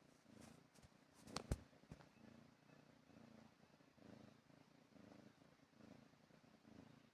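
A house cat purring softly, its low purr swelling and fading with each breath about twice a second. A short sharp click about one and a half seconds in.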